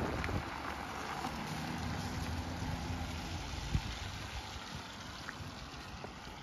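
A car driving slowly away over wet block paving, its low engine hum and tyre hiss fading. There is a single thud near the middle.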